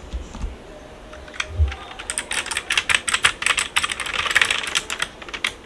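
Redragon K587 PRO mechanical keyboard with blue switches being typed on: a few scattered key clicks, then fast continuous typing from about two seconds in.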